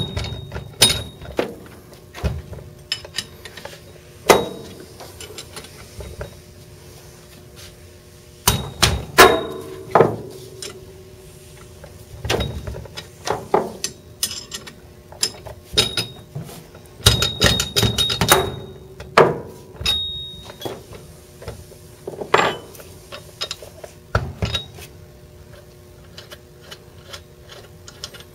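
Irregular metal clinks and knocks of a wrench working the cover-plate bolts of a brass Sensus jet water meter, with the wrench and bolts set down on the bench; some strikes ring briefly.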